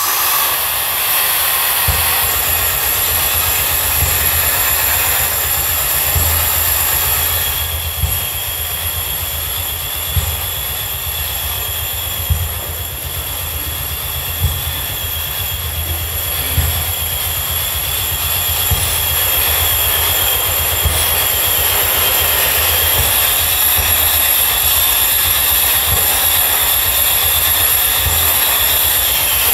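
Electronic noise and audio feedback played through loudspeakers: a dense steady hiss and drone with high whistling feedback tones above a low rumble. In the middle, sharp clicks come about two seconds apart.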